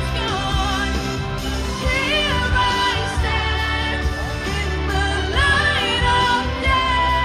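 Amplified pop song with a sung melody over a heavy bass line, played loud through a stage PA.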